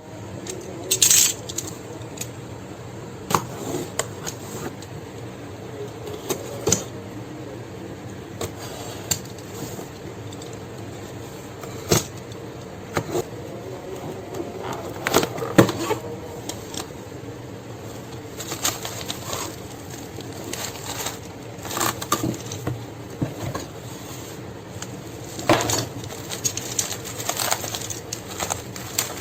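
Packaging and merchandise being handled during an unboxing: scattered clicks, taps and short rustles at irregular intervals, over a steady low background hum.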